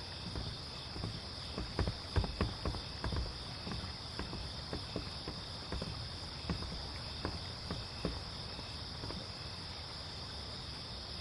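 Crickets chirring steadily in a high pitch, with irregular footsteps knocking on a wooden walkway that thin out after about eight seconds.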